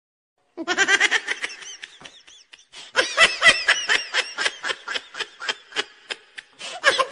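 Hearty laughter, a fast run of 'ha-ha' pulses starting about half a second in, dying down briefly, then a second bout from about three seconds that tapers off.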